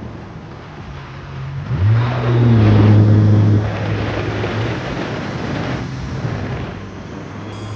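Sea-Doo RXT's supercharged Rotax engine under throttle on the water. Its pitch jumps up about two seconds in and it is loudest for about a second and a half, then eases off, with water spray and wind rushing past. It runs clean, without the deep boom of a boost leak, because its cracked intake manifold has been repaired.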